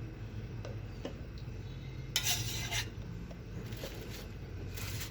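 A metal spoon stirring in a pot, with a few light clinks and two short scrapes, as honey is mixed into a licorice-root syrup.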